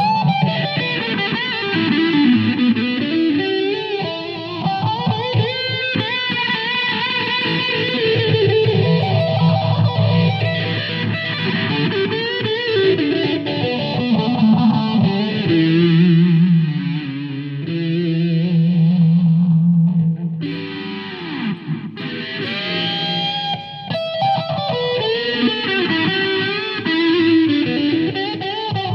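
Distorted electric guitar playing a melodic lead with notes bending up and down, over a steady low part.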